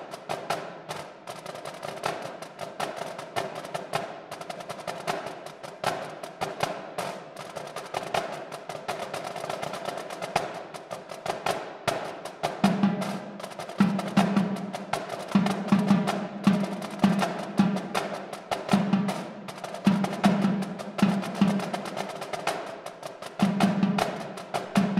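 Marching drumline of snare drums, tenor drums, bass drums and cymbals playing a cadence: fast, dense snare strokes throughout, with deeper drum hits joining in short rhythmic groups about halfway through.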